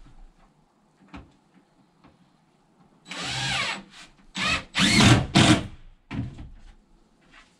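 Cordless drill running in a longer burst about three seconds in, then in several short bursts, its motor pitch sliding up and down as it bites into wood.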